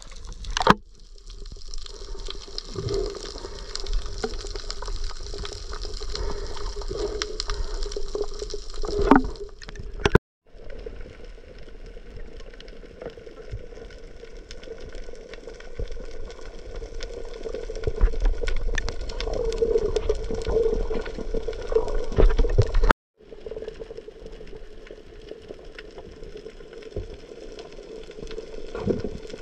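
Underwater sound picked up by a diving camera: a steady rush of water and bubbling with a dense crackle of tiny clicks. It drops out for an instant twice, about ten seconds in and again near 23 seconds, where the footage is cut.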